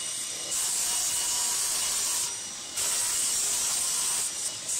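Table saw running with a steady high whine while it cuts plywood in two passes, each a second and a half or more of loud hissing cut noise, with a short break between them.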